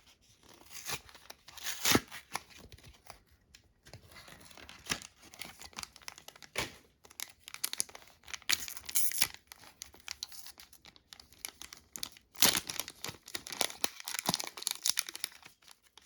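A trading-card booster pack wrapper being torn open and crinkled by hand: a run of rips and rustles, the loudest about two seconds in and again about twelve seconds in.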